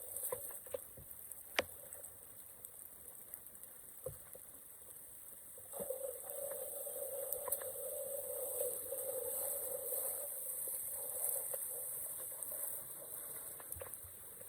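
Water running and trickling, growing louder about halfway through, with a couple of sharp knocks early on.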